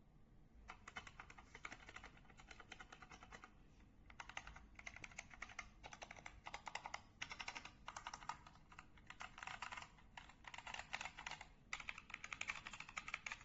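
Faint typing on a K68BT wireless mechanical keyboard with red switches: quick runs of key clicks broken by short pauses.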